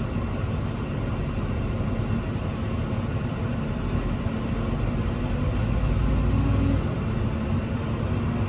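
Small tractor's engine running hard under load while pulling something stuck out of soft ground, the engine note rising a little about six seconds in.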